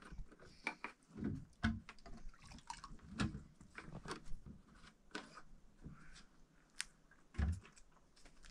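Irregular light knocks, taps and clicks, a few a second and uneven in strength, as of things being handled and set down.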